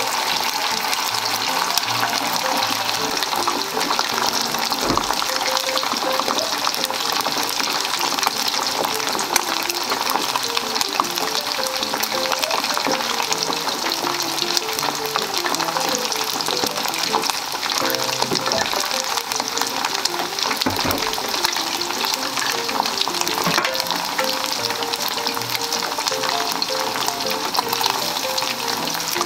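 Floured pieces of meat deep-frying in hot oil in a stainless steel pot: a steady, crackling sizzle of bubbling oil. Soft background music plays underneath.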